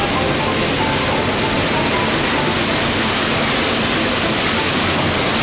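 Sternwheel of a paddle steamer churning river water: a loud, steady rush of splashing water.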